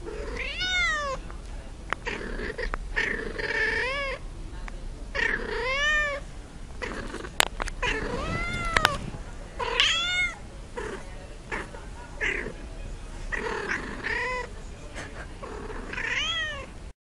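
Domestic cat meowing over and over, about eight drawn-out calls roughly two seconds apart, each rising and then falling in pitch. There are two sharp clicks near the middle.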